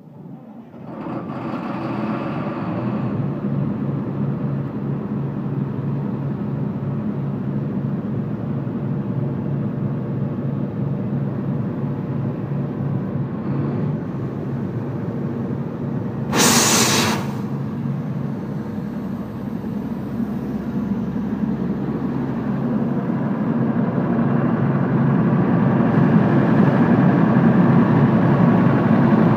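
An Ingersoll-Rand portable air compressor's engine starts up and settles into a steady run. About sixteen seconds in there is a short, loud hiss, and the running grows a little louder near the end.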